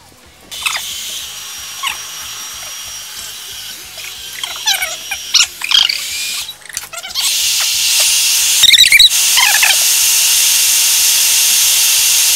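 Aerosol spray-paint can hissing steadily as paint is sprayed through a mesh stencil, louder and more continuous from about halfway through.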